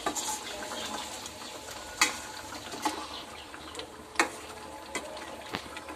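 A ladle stirring thick simmering paya gravy in a metal kadai, with a few sharp clinks of the ladle against the pan, the loudest about two seconds in and again just past four seconds, over a low steady hiss of the bubbling gravy.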